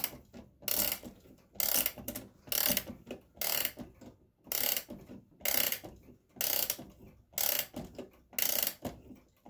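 Mainspring of a German Normandy (Bim-Bam) chime wall clock being wound with a crank key. Each turn of the key gives a short burst of ratchet clicking from the click and ratchet wheel, about one burst a second, with brief pauses between as the hand regrips.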